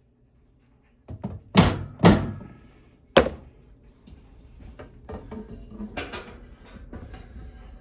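Hammer knocking a mounted microwave to shift it level: a couple of light taps, then three hard thunks within about two seconds, followed by lighter knocks and clicks.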